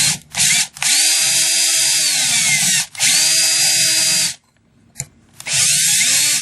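Power drill drilling a hole in a clip, run in bursts of the trigger: two quick pulls, then two long runs and a shorter one near the end. The motor whine rises as it spins up and falls away at each release.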